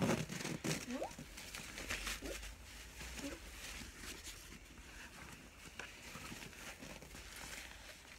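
Nylon sleeping-bag stuff sack rustling as it is handled and its drawstring pulled, with small scattered crinkles and taps; the handling is loudest right at the start.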